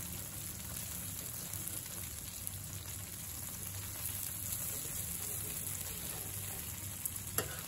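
Okonomiyaki frying on a hot flat griddle, giving a steady sizzle as two metal spatulas cut it. A couple of sharp clicks of metal on the griddle plate come near the end.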